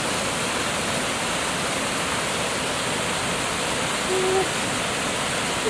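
Steady rushing of flowing river water, with a brief low tone about four seconds in.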